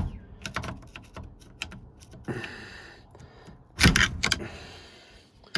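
Light metal clicks and scrapes of a small pick or screwdriver working at the steering column's lock ring, with a short scrape a little past two seconds and a louder clatter of clicks about four seconds in.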